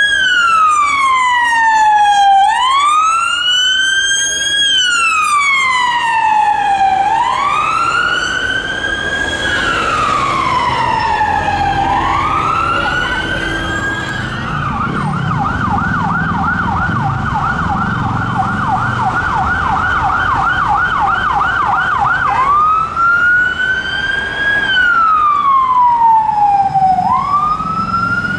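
Police car sirens. A VW Sharan police car's siren runs on a slow wail, rising and falling about every two seconds. About halfway through, an unmarked Ford Focus police car's siren takes over on a fast yelp of about four sweeps a second, then goes back to the wail about eight seconds later, with engine and traffic noise beneath.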